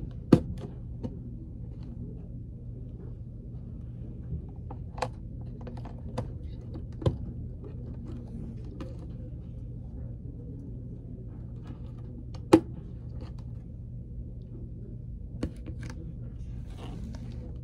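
Scattered clicks and taps of a lidded plastic food container being handled on a table, the sharpest click about twelve seconds in, over a steady low hum.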